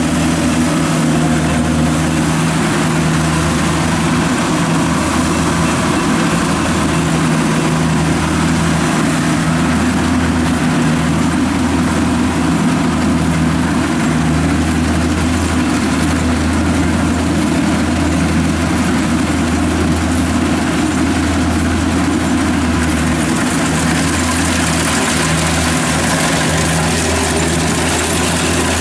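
Kubota rice combine harvester's diesel engine running steadily at an even speed, a constant low hum.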